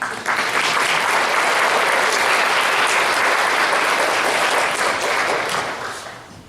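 Audience applauding. It starts all at once and fades away over the last second or so.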